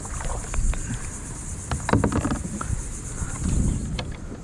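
A steady high-pitched insect chorus from the mangroves, with scattered knocks and clunks of paddle and gear being handled on a plastic kayak, the loudest cluster about two seconds in.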